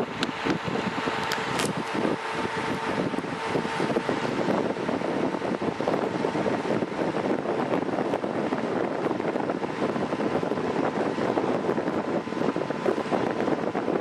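Mondial electric fan running steadily: an even rush of air from the spinning blades, with a faint steady whine underneath.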